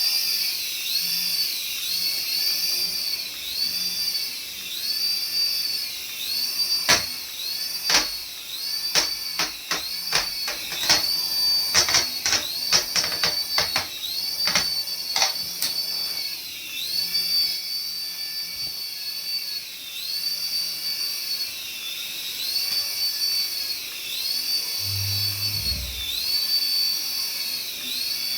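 Battery-powered toy's electronic sound effect: a high whine that swells and dips in a loop about once a second, with a run of sharp clicks in the middle and a brief low rumble near the end.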